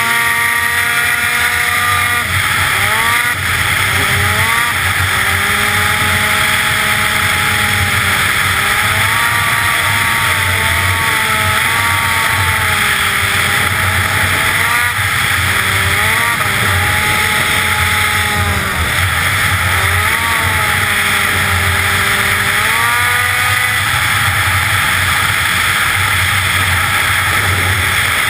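Arctic Cat ZR 900 snowmobile's two-stroke engine running hard at high revs while the sled skips across open water, its pitch dipping and climbing again several times, over a steady rush of wind and water noise.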